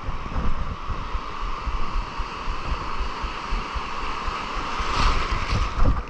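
Sea water rushing and splashing around the fisherman, with wind buffeting the microphone in gusts; the rush swells louder about five seconds in.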